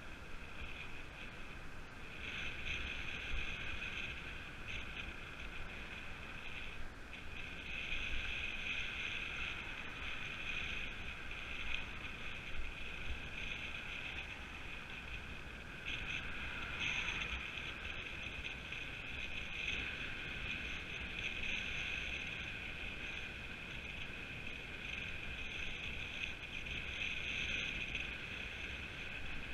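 Steady whirring hiss of a road bike in motion: tyres running on tarmac and wind on the microphone, with a low rumble underneath.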